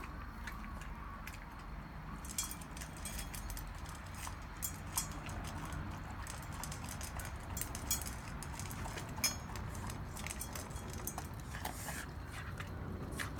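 Shiba Inu eating its food: irregular crunching and clicking bites.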